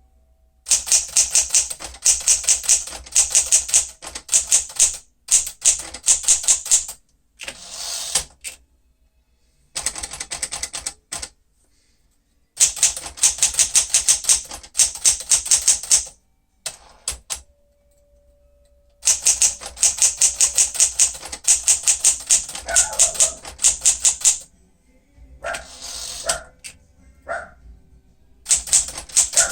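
Typing on a 1965 Sears Citation 12, a Smith-Corona-built manual typewriter: runs of rapid key strikes separated by short pauses, with a short steady tone partway through.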